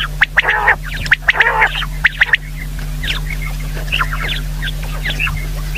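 Common quail calling: a quick run of short, sharp chirps and two longer harsher calls in the first couple of seconds, then scattered chirps, over a steady low electrical hum.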